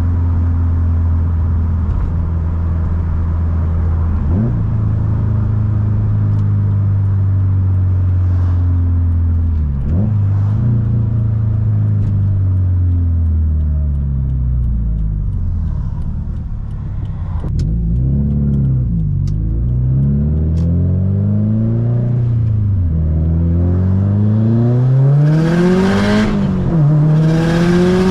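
Subaru WRX STI's turbocharged flat-four engine driving: it holds a steady pitch at first, then revs rise and drop several times through gear changes, ending in a hard pull that climbs in pitch and loudness near the end.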